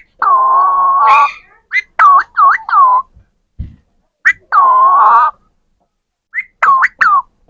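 Parrot calling: two long, held whistle-like notes, each followed by a quick run of short swooping notes.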